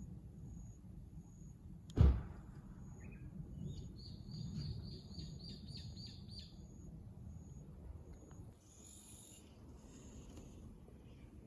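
Outdoor ambience with a low steady background, a single sharp knock about two seconds in, then a bird calling a quick run of about nine high chirps.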